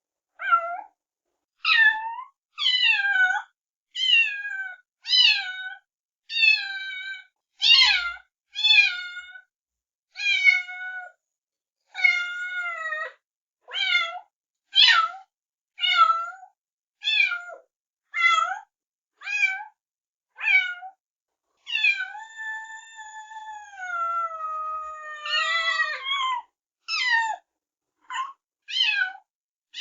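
Kitten meowing over and over in high, short cries, about one a second, with one long drawn-out meow about 22 seconds in.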